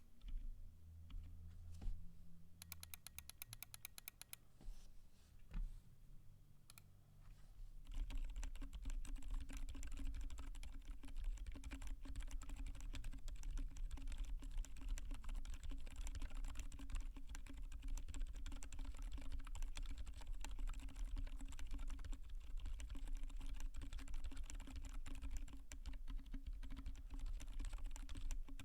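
Typing on a UT47.2 acrylic 40% keyboard with lubed Gazzew Boba U4 silent tactile switches, a POM plate and KAT-profile Lich keycaps. A few scattered keystrokes come first, then fast, continuous typing from about eight seconds in.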